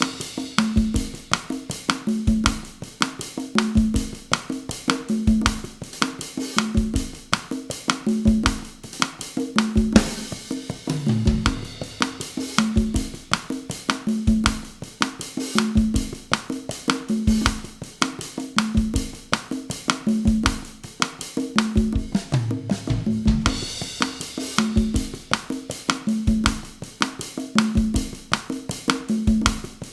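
Drum kit and congas playing a bossa nova groove at 160 bpm, a steady repeating pattern of pitched conga strokes over kick, snare or rim and cymbal, with short fills about ten seconds in and again near twenty-three seconds.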